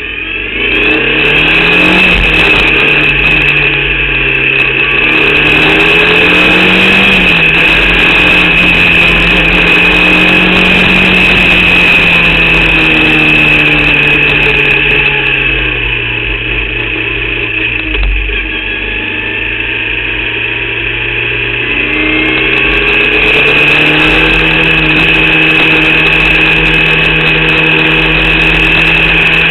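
Formula Vauxhall 8v single-seater's four-cylinder race engine heard on board at racing speed, revs climbing and falling with gear changes, easing off for a long spell in the middle and picking up again near the end, over a steady high whine. The engine is one the driver reports as misfiring in this race.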